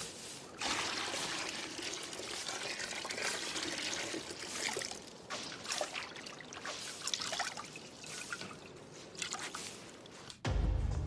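Water splashing and trickling in a wooden washtub as hands scrub and wring wet cloth, with many small irregular splashes. Music comes in just before the end.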